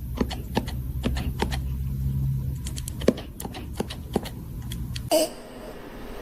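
A series of irregular sharp clicks and taps over a steady low hum, stopping abruptly about five seconds in.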